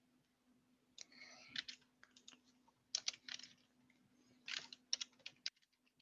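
Typing on a computer keyboard: quick bursts of keystrokes, with a faint steady low hum underneath that stops near the end.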